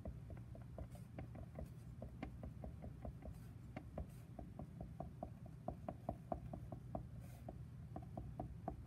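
Felt-tip marker tapping and stroking on paper: a quick, uneven run of light ticks, several a second, as dots and short dashes are drawn, over a low steady hum.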